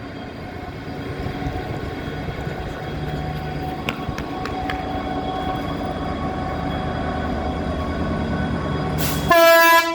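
Class 66 diesel freight locomotive's two-stroke V12 engine running and slowly growing louder as it powers up to pull away. About nine seconds in, its horn sounds a very loud steady tone.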